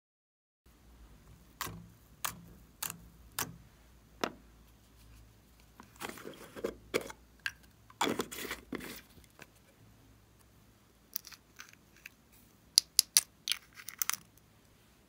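Small plastic toy and cosmetic containers being handled and opened. There is a run of sharp plastic clicks about every half second, a few seconds of rustling and scraping in the middle, and a quick cluster of loud clicks near the end.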